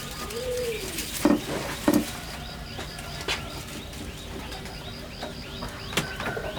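Birds chirping, with one low call rising and falling near the start. Two sharp knocks come about a second in, and another near the end.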